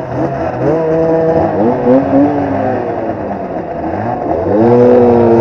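Simson single-cylinder two-stroke motorcycle engine revving under acceleration, its pitch rising and dropping with the throttle and gear changes. A strong rise comes a little past four seconds in and then holds high.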